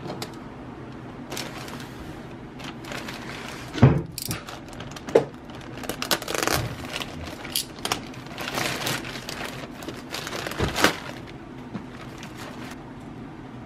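Thin black plastic mailer bag crinkling and tearing as it is slit open with a box cutter and pulled apart. A few sharp knocks stand out from the rustling, the loudest about four seconds in.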